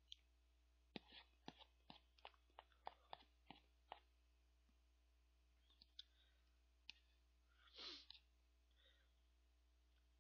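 Faint eating sounds from a person eating ice cream with a metal spoon out of a paper tub: a quick run of about a dozen small clicks, then a few scattered clicks and a short breathy sound about eight seconds in.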